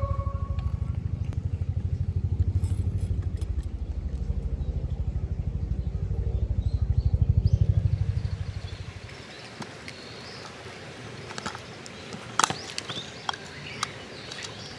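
An engine running close by with a steady low pulsing rumble, fading out about nine seconds in. It is followed by a few light knocks and clicks.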